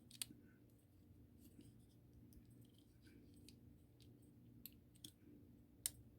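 Near silence over a low steady hum, broken by a few small sharp clicks of a diecast toy car being handled and put back together, the loudest near the end.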